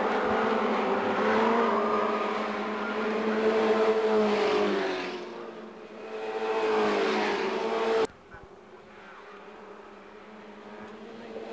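Formula Ford racing car engines at high revs passing through a bend, the pitch falling and rising as they brake and accelerate; one car fades about five seconds in and another comes through. The sound cuts off sharply about eight seconds in, leaving quieter, more distant engines.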